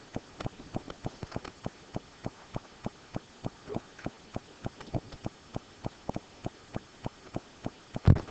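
A steady run of short, sharp clicks, about three a second, with a louder thump near the end.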